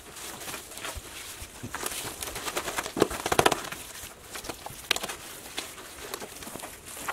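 Wet concrete being spread and levelled by hand with a wooden stick: scattered scrapes and taps, with a quick run of taps about three seconds in and a sharp click near five seconds.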